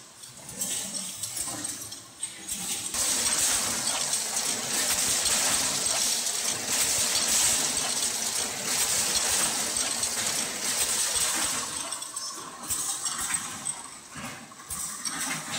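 Machinery of a square tin-can production line running, with a steady rushing noise and many light metallic clinks. It grows louder about three seconds in and eases off near the end.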